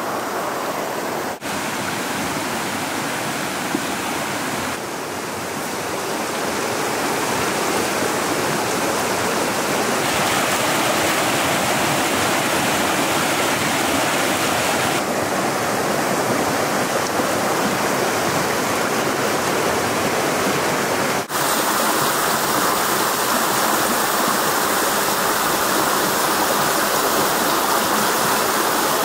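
Shallow river running over stones: a steady rushing, babbling water sound. It breaks off for an instant twice, about a second and a half in and about two-thirds through, and comes back each time with a slightly different tone.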